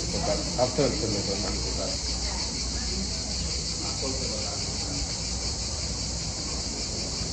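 A chorus of insects, a steady high shrill buzz that does not let up.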